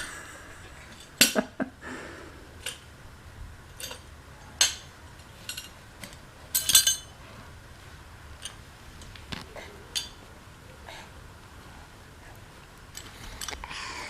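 Small metal hand tools clinking and knocking together as a toddler handles them: irregular taps, some with a short metallic ring, the loudest about a second in and again near five and seven seconds.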